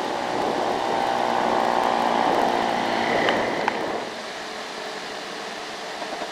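Truck and motorbike engines pulling up a steep road, with an engine note that falls about two and a half seconds in. About four seconds in the sound drops to a quieter, steady traffic hum.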